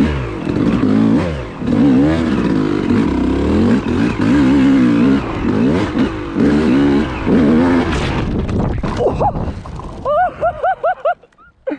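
Yamaha YZ250 single-cylinder two-stroke dirt bike engine revving hard under the rider, its pitch climbing and dropping with each throttle burst and gear change. About eight seconds in, the revs fall away and the engine goes quieter, with a few short quick warbles near the end.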